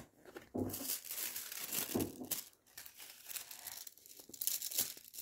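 Thin holographic transfer foil sheet crinkling and rustling as it is handled and pressed onto the adhesive foil-art card, in irregular bursts that are loudest near the end.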